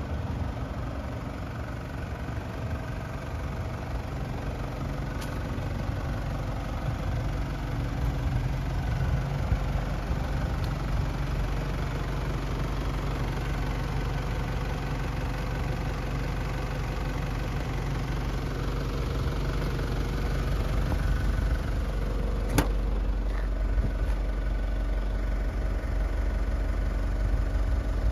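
Nissan Elgrand's ZD30DD 3.0-litre four-cylinder diesel idling steadily, with one sharp click late on.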